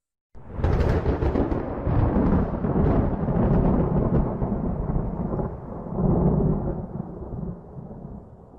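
Thunder: a sudden crack out of silence just after the start, then a long rolling rumble that swells several times and slowly fades near the end.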